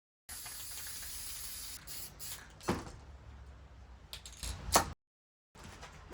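Aerosol spray-paint can hissing steadily for about a second and a half as a tack coat of black paint goes onto a turbocharger's turbine housing. A few light knocks follow.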